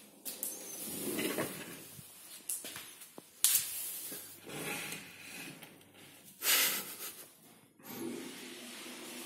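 Dishwasher door fitted with a kitchen cabinet front being opened and closed: rubbing and hissing sounds, a sharp knock about three and a half seconds in, and a loud rush of noise about six and a half seconds in.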